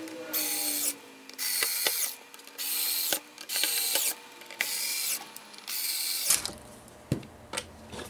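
Cordless electric screwdriver driving machine screws into the printer's top plate in six short runs of about half a second each, stopping about six seconds in.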